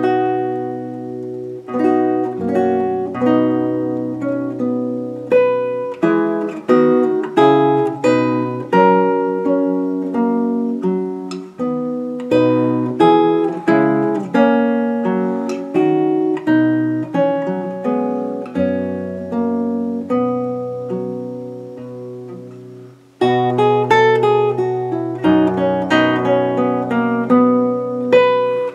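Solo classical guitar with a capo, fingerpicking a Renaissance alman in slow chords with a melody over held bass notes. A little past three-quarters through, the notes die away briefly, then the playing starts again loudly.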